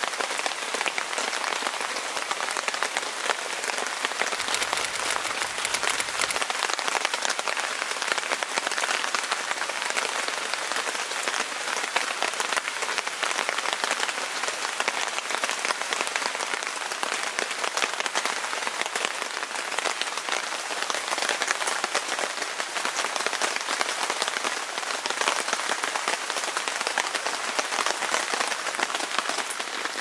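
Heavy rain falling steadily: a dense, even patter of drops on surrounding surfaces.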